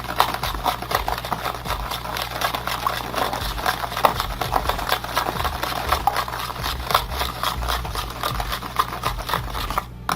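Fortune-cookie batter being beaten in a bowl: rapid, irregular clicking and scraping strokes, several a second, over a low steady hum.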